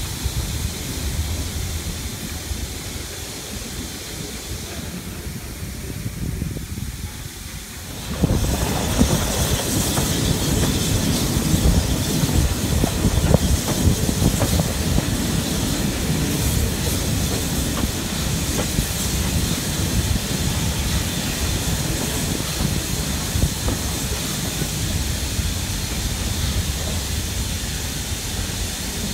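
Steam train running along the line with a low rumble and wheel clatter. About eight seconds in, this changes abruptly to a loud, steady steam hiss from the locomotive standing at the platform.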